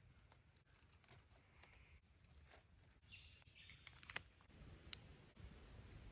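Near silence: faint outdoor ambience with a few soft clicks about two-thirds of the way through.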